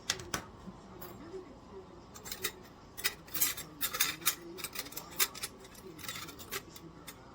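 Hard objects being handled, clicking and clinking in irregular clusters, busiest in the middle of the stretch.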